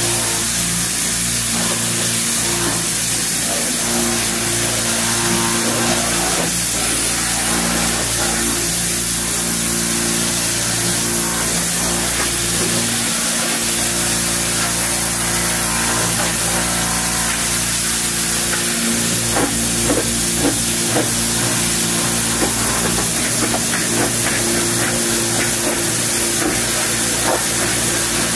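Pressure washer wand spraying a jet of water onto a rendered wall, a steady hiss that carries on unbroken, with a steady low hum underneath.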